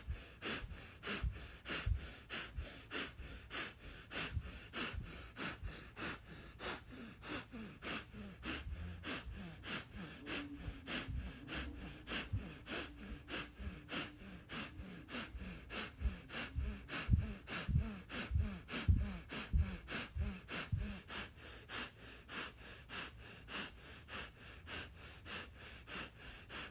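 A woman breathing fast and rhythmically in and out through the mouth, about two breath sounds a second, steady throughout: a round of breathwork power breathing.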